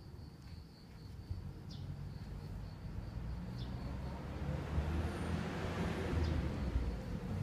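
A vehicle approaching, its low rumble and hiss growing steadily louder, over a high steady insect trill that fades out a few seconds in.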